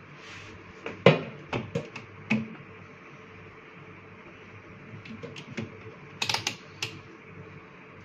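Irregular clicks and light taps of a screwdriver against the refrigerator's plastic defrost timer and its housing. A quick cluster comes about a second in, the loudest of them, and another near the six-second mark.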